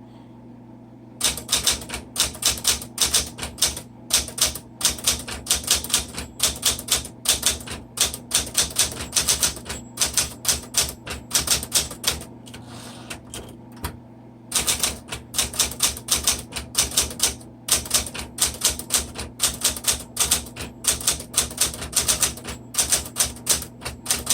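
Smith Corona Super Sterling manual typewriter being typed on at speed: rapid runs of type bars striking the paper, starting about a second in, with a pause of about two seconds near the middle before the typing resumes. A steady low hum sits underneath.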